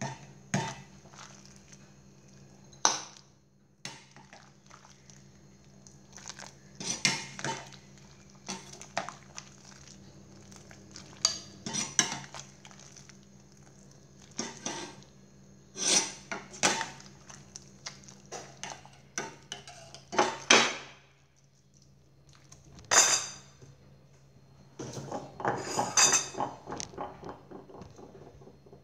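Steel ladle clinking and knocking against a stainless steel pot and a bowl as soup is ladled out, in irregular strikes with a few louder ones. A faint steady low hum runs underneath.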